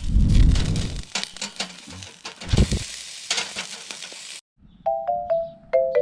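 A Jindo dog's loud, low burp, followed by crackling and clicking noises and a second, shorter low sound. After a sudden break near the end, a jingle of bright mallet-percussion notes begins.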